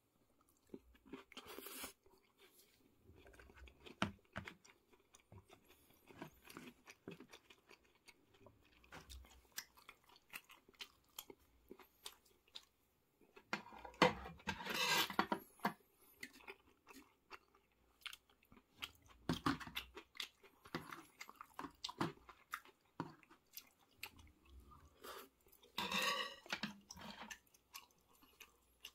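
A person chewing mouthfuls of curry rice close to the microphone, with irregular wet clicks and smacks. There are louder, denser bursts of chewing noise about halfway through and again near the end.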